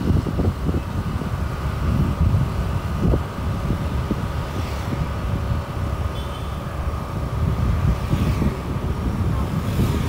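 A vehicle moving along a town road: steady travelling noise with a dense, unsteady low rumble and a faint steady whine.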